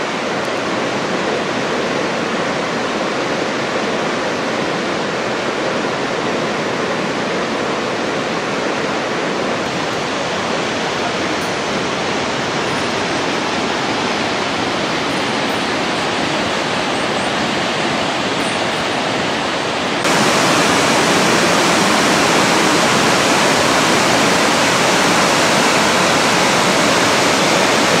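Steady rushing of a large waterfall, Sanjō Falls, a continuous dense wash of falling water. About 20 seconds in it abruptly becomes louder and hissier.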